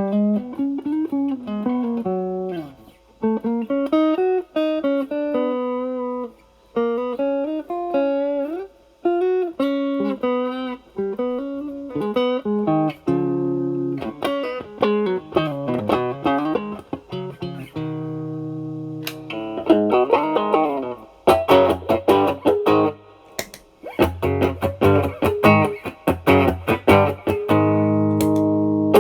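Fender Stratocaster with single-coil pickups played through an Ibanez Tube Screamer Mini overdrive pedal, drive at zero, into a Marshall Valvestate amp's clean channel. Single-note lines with string bends give way, about halfway through, to ringing chords and then short, choppy rhythmic strumming.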